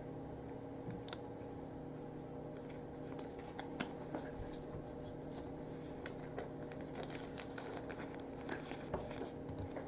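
Faint, scattered clicks and scrapes of trading cards being handled and flipped through after a pack is opened, over a steady low hum.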